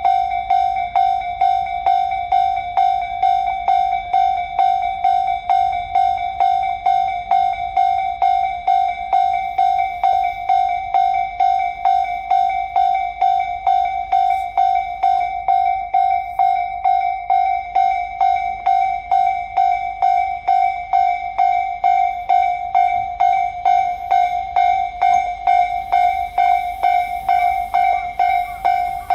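Japanese railway level-crossing warning bell ringing in a steady, even rhythm of about two strikes a second.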